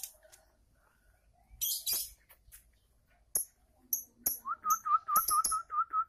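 Lovebirds calling with short harsh screeches and very high, sharp chirps. From a little past the middle, a quick run of short whistled notes repeats at about four a second.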